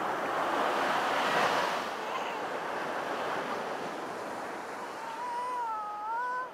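Ocean surf washing in steadily, loudest in the first two seconds, with wind on the microphone. Near the end a single drawn-out voice rises and falls in pitch.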